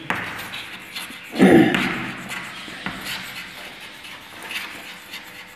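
Chalk scratching and tapping on a blackboard as words are written by hand, with one short vocal sound from a man about a second and a half in.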